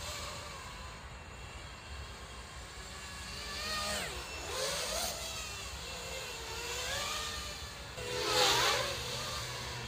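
X220S FPV racing quadcopter's motors and propellers whining as it flies past. The pitch swoops up and down with the throttle over several passes, loudest about eight and a half seconds in.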